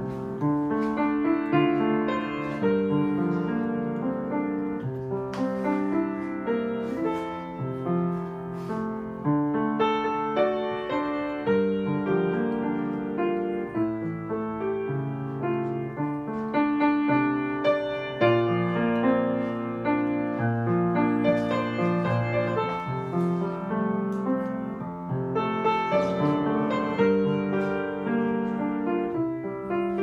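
Background piano music: a steady run of notes and chords.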